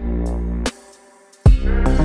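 Electronic background music with heavy bass: a deep bass note cuts off, there is a short break, and the beat comes back in about one and a half seconds in.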